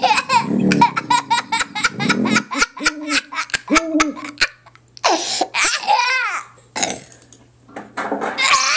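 A baby laughing hysterically in a quick run of short bursts, then higher, squealing laughs about five seconds in and again near the end.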